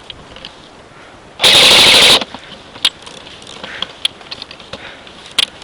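Airsoft electric gun firing one rapid full-auto burst of just under a second, very loud and close to the microphone. A few sharp single clicks follow later.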